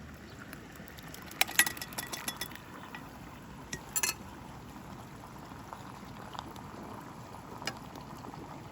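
Kitchenware clinking: a quick cluster of light clinks about a second and a half in, with a faint ring, and a couple more around four seconds, over a low steady background.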